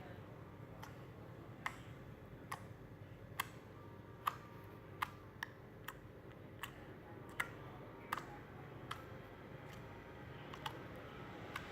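Slime being squeezed and stretched, making short sharp clicks and pops at an uneven pace, a little under one a second.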